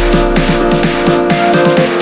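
Electronic background music with a fast, driving beat.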